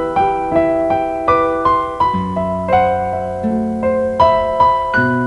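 Electronic keyboard with a piano-like tone playing the slow instrumental introduction of a song: a melody of single notes, about two or three a second, each ringing and fading, over held bass notes that change twice.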